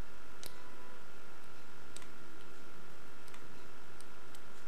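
Number wheel of a Squire CP1 combination padlock being turned slowly with the release button held in: a few faint, widely spaced clicks as the wheel steps round while the lock is felt and listened to for the digit that clicks in.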